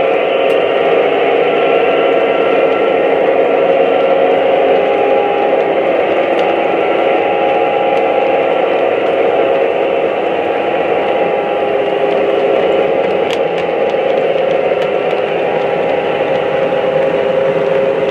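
Three-rail O-scale model freight train rolling past: a steady running noise of metal wheels on the track and the cars' rumble.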